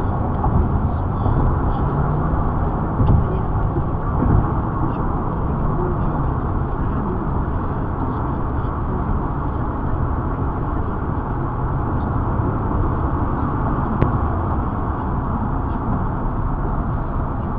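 Steady road and engine noise inside a moving car, picked up by a dashcam's microphone. It carries a couple of soft thumps about three and four seconds in and a single click late on.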